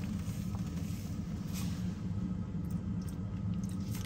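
A steady low hum, with a couple of faint ticks about half a second and a second and a half in.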